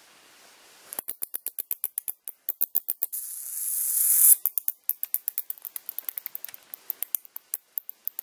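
A captured bat squeaking rapidly, short high-pitched chirps at about six to eight a second, starting about a second in. Around the middle it gives a hiss that rises in loudness for about a second and then stops abruptly.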